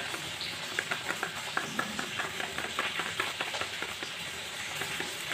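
A spoon scraping and tapping inside a nearly empty plastic container of turmeric powder, getting out the last of it. It is a quick run of short scrapes and clicks, several a second, which thins out after about three and a half seconds.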